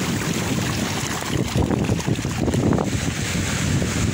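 Wind buffeting the microphone in a gusty, low rumble, with small waves washing up over a sand beach.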